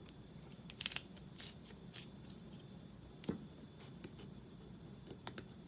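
Built-in grinder cap on a coffee spice bottle being twisted, giving faint, irregular clicks and crunches as it grinds the espresso spice blend, with a louder knock a little past three seconds in.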